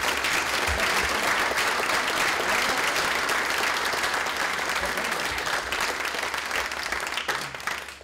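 Audience applauding steadily, the clapping thinning out and stopping near the end.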